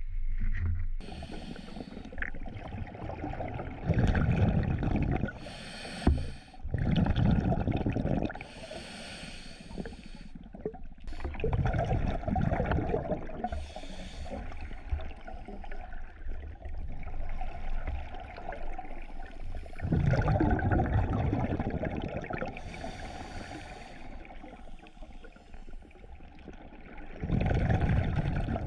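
Scuba diver breathing through a regulator underwater: a short hiss on each inhalation, then a longer rush of exhaled bubbles, about five slow, uneven breaths. One sharp knock about six seconds in.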